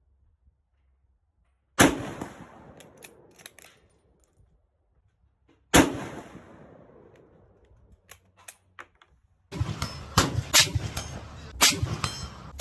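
Two shots from a MAS 36 bolt-action rifle in 7.5×54mm French, about four seconds apart, each report trailing off over a couple of seconds, with a few lighter metallic clicks between them. About three seconds before the end a busy run of sharp hits starts and keeps going.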